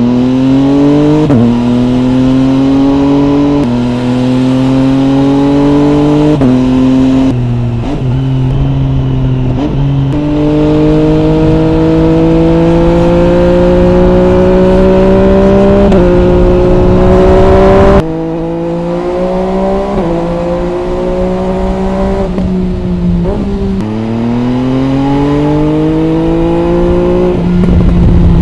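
MV Agusta Brutale 800 RR's three-cylinder engine through an MV Agusta Corse exhaust, heard from the bike: it pulls hard through several upshifts, the pitch rising and stepping down at each change. About 18 seconds in the throttle shuts suddenly and the revs fall through a series of downshifts, each with a short blip, before it accelerates again near the end.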